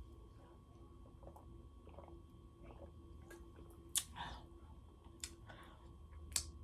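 Quiet mouth sounds close to the microphone: soft clicks, lip smacks and chewing noises from someone finishing a mouthful, with the sharpest click about four seconds in.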